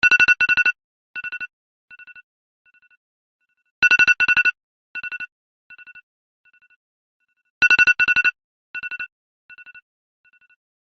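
iPhone alarm ringing: a cluster of rapid, bright beeps that restarts about every four seconds, each time trailing off in fainter and fainter repeats like an echo. Three cycles sound.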